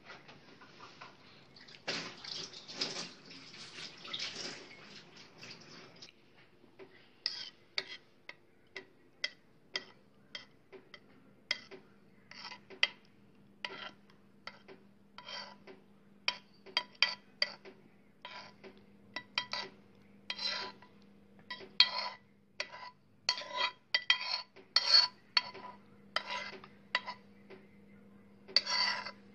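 A metal spoon clinking and scraping against a glass cup again and again while thick chocolate pudding is spooned into it, after a few seconds of scraping noise at the start. A faint steady hum runs underneath.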